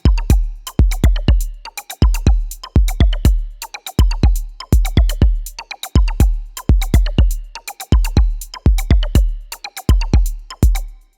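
Background music: an electronic drum-machine beat of deep kick drums with sharp hits, in a repeating pattern that cuts off suddenly near the end.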